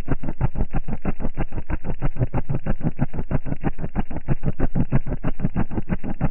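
Loud bass-heavy electronic music played through a car audio system's wall of subwoofers, heard inside the vehicle. The bass comes as a rapid, even pulse of about nine beats a second.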